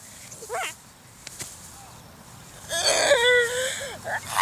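A girl's non-speech vocal noises: a short wavering cry just after the start, then a loud, breathy, wavering shriek about three seconds in.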